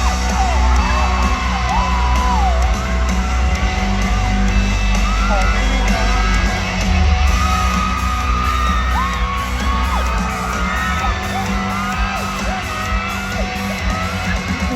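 Loud amplified pop music with a heavy, steady bass in a large hall, with a crowd of fans screaming and whooping over it.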